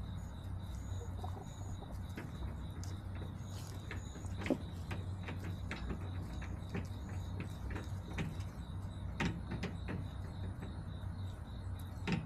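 Backyard chicken-coop ambience: a steady low hum and a faint steady high tone, broken by scattered light clicks and taps, several seconds apart.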